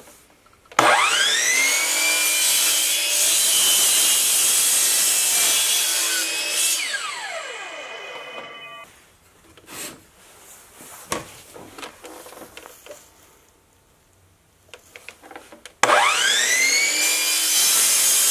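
Electric miter saw: the motor whines up to speed about a second in, runs loudly for about six seconds and winds down with a falling whine. A few knocks and clicks follow, then it starts up again near the end and cuts through a PVC pipe.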